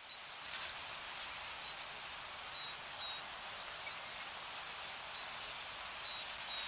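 A steady, even hiss like wind or rain, with a few short faint high chirps scattered through it.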